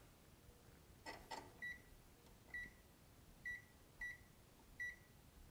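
Digital multimeter set to diode mode giving five short, faint, high beeps at irregular intervals during measurements on a logic board, with a couple of faint clicks about a second in.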